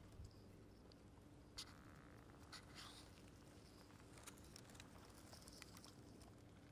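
Near silence: faint background hiss with a few soft, scattered ticks.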